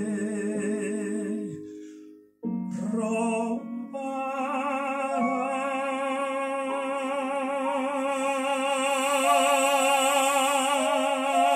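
Operatic solo singing in Spanish with wide vibrato over instrumental accompaniment. The voice breaks off briefly about two seconds in, then comes back and holds long notes.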